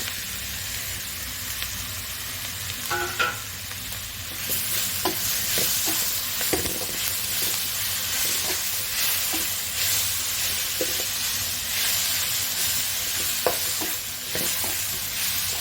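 Onions and ginger-garlic paste frying in oil, with chopped tomato just added, sizzling in the pan while being stirred, with light clicks of the spoon against the pan. The sizzle grows louder about four seconds in.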